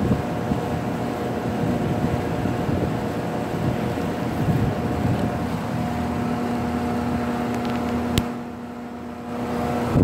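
Steady hum of air-conditioning equipment with a few fixed tones. A little after eight seconds there is one sharp click, the sound drops for about a second, and then the 2014 3-ton Rheem central air conditioner's condenser unit starts up, its fan's air rush building at the very end.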